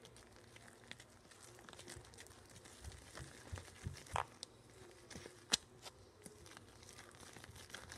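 Slime being squished and kneaded by hand in a plastic cup: soft, irregular crackling with many small clicks and pops, and a sharper pop about five and a half seconds in.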